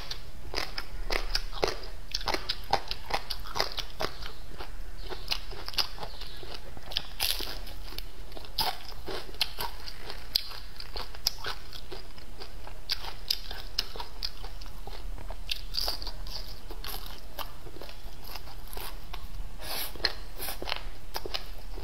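Chewing and biting of fried crucian carp and noodles, with crunching and many quick mouth clicks, busiest in the first few seconds and sparser after.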